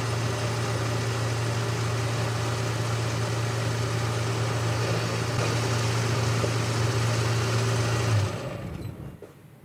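Boxford metalworking lathe running steadily at speed, a continuous motor and drive hum. About eight seconds in it is switched off and runs down, fading over about a second.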